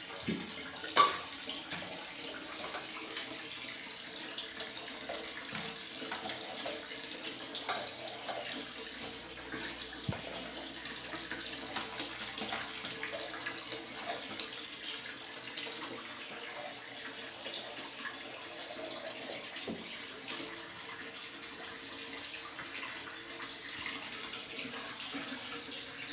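Water running steadily in a small tiled bathroom, with scattered light knocks and one sharper knock about a second in.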